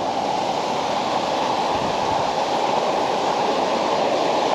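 Water rushing steadily through a rocky river chute.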